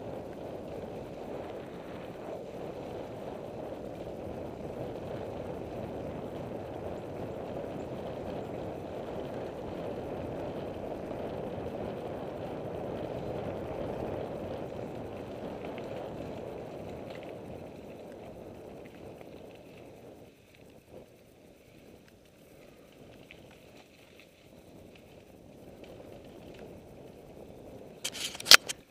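Steady rushing noise of riding along a leaf-covered trail, swelling and then fading away about two-thirds through. A few sharp knocks just before the end from the camera being handled.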